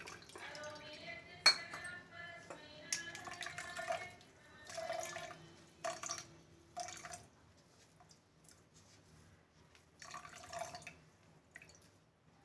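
Wet ground pulp being strained with warm water and squeezed, liquid dripping and splashing into a glass, with a sharp clink of a utensil on the glass about a second and a half in and a few softer knocks and splashes after.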